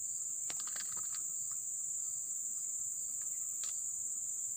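Insects in tropical riverside forest droning steadily on one high pitch. A few faint clicks come about half a second to a second in and once more about three and a half seconds in.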